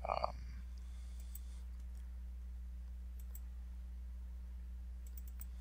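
A few faint, sharp computer mouse clicks spaced irregularly over a steady low electrical hum, with a brief mid-pitched sound right at the start.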